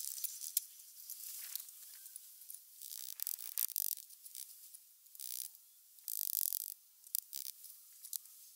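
Trowel scraping and picking up wet cement mortar, and spreading it for the blocks: short high scrapes and small clicks, with two longer hissing scrapes about three and six seconds in.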